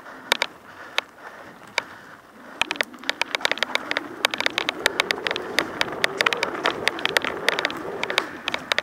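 Mountain bike ridden over a rough dirt trail: the bike rattles and clatters with many sharp, irregular knocks over bumps, over a steady rush of tyre and wind noise. The knocks are sparse for the first couple of seconds and come thick and fast from about three seconds in.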